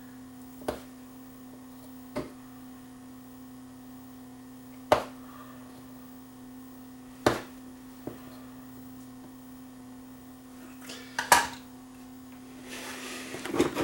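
Sharp clicks and taps of small tools working on an LED bulb's circuit board, five of them spread apart, over a steady electrical hum; a brief hiss near the end.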